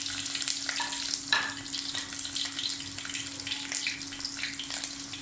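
Crushed garlic cloves and fennel seeds frying in hot sesame oil in a clay pot, a steady sizzle scattered with small crackles. There is a sharper pop about a second in, over a low steady hum.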